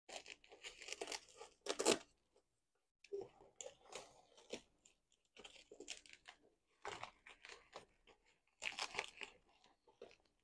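Fabric of a pet stroller's carrier and canopy rustling and crinkling in repeated bursts as it is handled and fastened closed.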